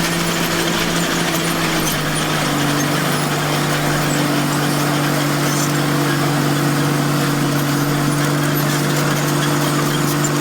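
Komatsu bulldozer's diesel engine running steadily while working, its note dropping slightly about two seconds in.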